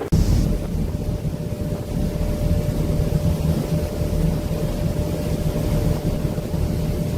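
Fast passenger ferry's engines running steadily under way: a constant low rumble with a steady whine over it.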